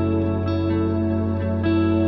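Background music: gentle new-age style with plucked guitar and sustained notes changing every half second or so.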